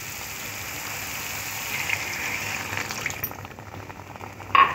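Milk being poured into a hot metal kadai of prawn masala: a steady pour that eases off about three seconds in. Near the end comes a short metallic clink of the spatula on the pan.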